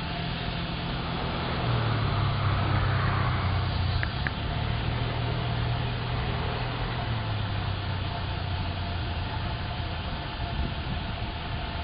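A vehicle engine running, a steady low hum that rises in pitch about two seconds in and settles lower again about eight seconds in. Two short clicks come about four seconds in.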